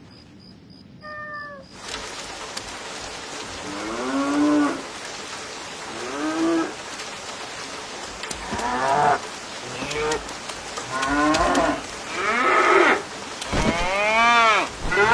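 An animal calling again and again, one drawn-out call every one to two seconds, each rising then falling in pitch, the calls growing louder toward the end.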